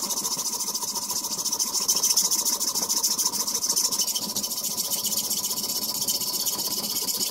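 Hacksaw cutting through a metal rod clamped in a bench vise: a steady run of back-and-forth strokes with a high, rasping hiss.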